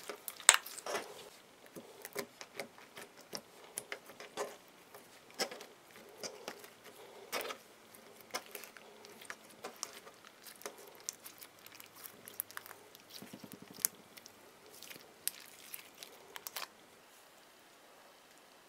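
Soft, creamy green slime with Orbeez in it being squeezed and stretched by hand, making irregular sticky clicks and wet squelches. It cuts off near the end.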